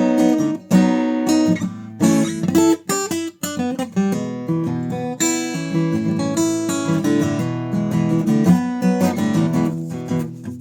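Newtone Gypsy Road GA 45 acoustic guitar played unplugged, with plucked single notes and strummed chords in a quick, rhythmic run.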